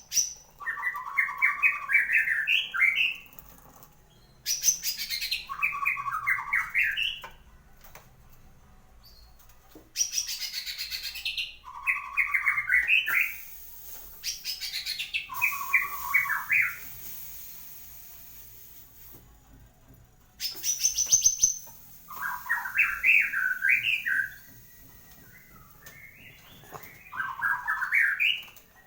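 A caged murai batu (white-rumped shama) singing freely just after its moult. It sings repeated varied phrases a second or two apart, several opening with a fast high trill before dropping into lower warbled notes.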